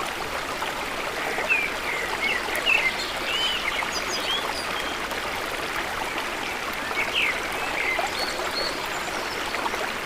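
Steady rush of flowing water, with small birds chirping in short quick notes: a cluster of chirps a second or two in and another around seven seconds in.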